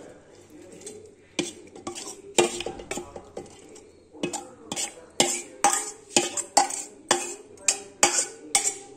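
A metal spoon scraping and knocking against a steel plate as marinated chicken is pushed off it into a clay handi. The clinks come sparsely at first, then about twice a second from about halfway through.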